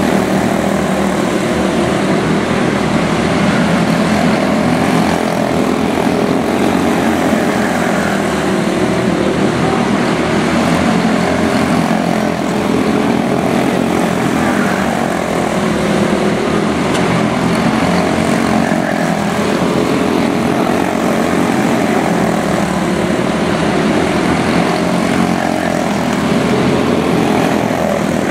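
A pack of quarter midget race cars running at speed around a small oval, their small single-cylinder engines making a continuous overlapping drone that rises and falls in pitch as the cars lap.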